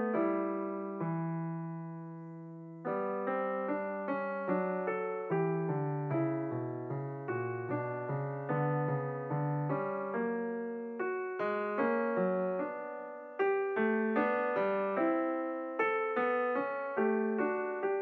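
Background piano music: a slow melody of struck notes over low bass notes. A chord is held and fades about a second in before the playing picks up again.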